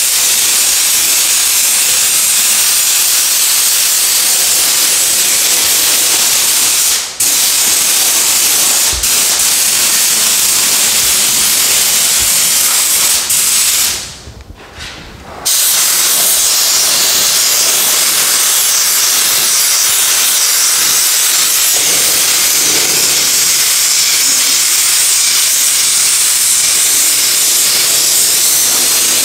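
Compressed-air paint spray gun hissing steadily while spraying a ground coat onto an engine block. The hiss breaks briefly about seven seconds in and pauses for about a second and a half near the middle as the trigger is released.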